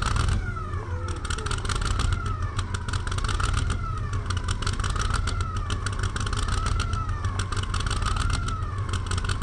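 Super Mod two-wheel-drive pulling truck engine idling with a steady low rumble and a fast, rattling crackle, while a siren wails up and down about once every second and a bit.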